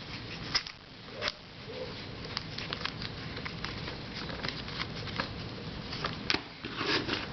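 Light clicks and taps of plastic puzzles being handled and set down, irregular and scattered over a faint steady hiss.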